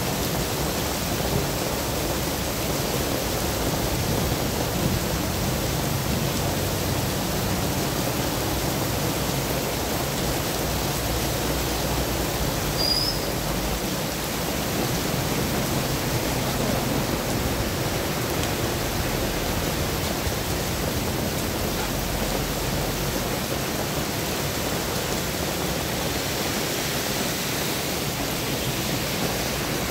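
Heavy rain pouring steadily onto a wet road, an even hiss with no let-up, with a low hum of traffic beneath it.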